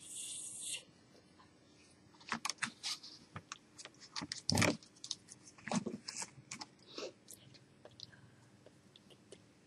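Faint, scattered lip smacks and mouth clicks from someone silently mouthing words while signing, opening with a short breathy hiss. The loudest sound is a single soft thump about four and a half seconds in.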